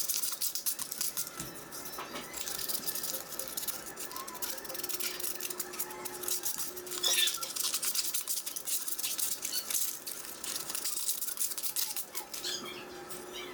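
Rapid, scratchy hand scrubbing of an abrasive on the steel blade of a Disston D-23 handsaw, stroke after stroke, during rust removal.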